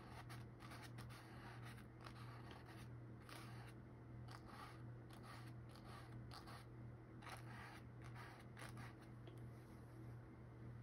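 Faint scratchy strokes of a paintbrush's bristles dabbing and dragging paint on canvas, short strokes at uneven intervals, over a steady low hum.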